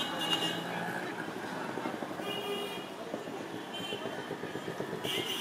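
Busy city street traffic with short vehicle horn toots about four times, over a steady hum of passing engines and the voices of passers-by.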